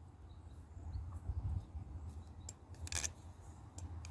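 Squid Industries Nautilus balisong trainer being flipped for a sound test: a few sharp clicks as the handles and blade snap closed, the loudest about three seconds in, over a low steady hum.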